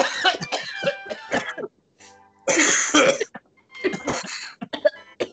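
A man coughing hard into his elbow over a video call: a loud rough cough about two and a half seconds in and a shorter one near four seconds, after a stretch of garbled voices.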